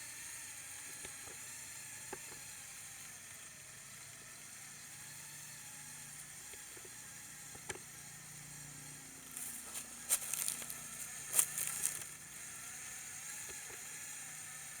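Electric drive motor and plastic gearbox of a remote-controlled Lego Technic 4x4 crawler, running in second gear with a faint steady hum as it climbs over roots. Bursts of crackly clicking come about ten and eleven and a half seconds in.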